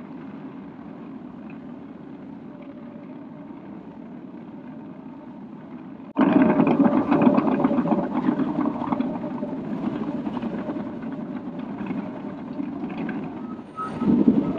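Cat D6K2 LGP bulldozer's diesel engine running steadily, then suddenly much louder and fuller about six seconds in, with a short dip and surge near the end.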